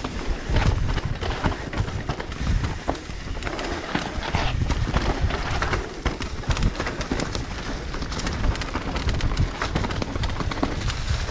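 Mountain bike riding fast down a dry, leaf-covered dirt trail: tyres crunching through fallen leaves, with constant rattling and knocking of the bike over bumps. Wind rumbles on the microphone.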